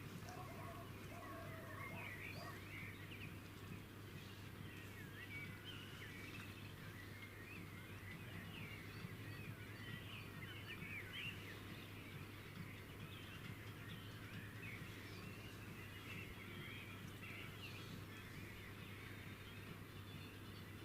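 Faint outdoor ambience of many small birds chirping and singing at once, short twittering calls overlapping throughout, over a steady low hum.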